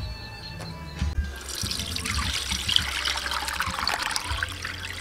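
Coconut milk, squeezed from grated coconut, trickling and splashing through a plastic strainer into a pot of milk, starting about a second in.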